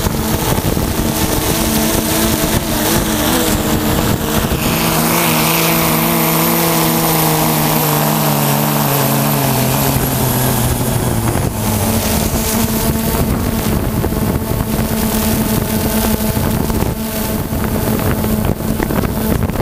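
Quadcopter drone's electric motors and propellers buzzing steadily, their pitch shifting and falling for several seconds in the middle, with wind on the microphone.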